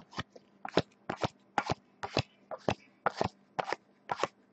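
A pack of 2014 Topps Prime football trading cards being flipped through one at a time, each card sliding off the stack with a short snap, about two a second.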